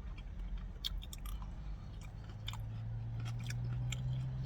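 A person chewing crispy fried chicken, with scattered small crunches and mouth clicks. A low steady hum comes in about two seconds in.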